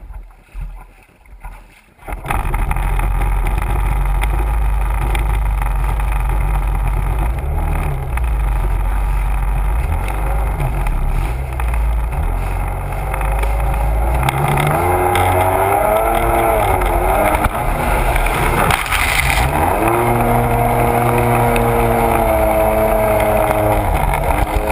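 Sea-Doo personal watercraft engine and jet pump: quiet for the first two seconds, then the engine note jumps up loud as throttle is applied, runs low and steady, and from about halfway through revs up and down before holding a steady higher pitch at speed, with water spray rushing past.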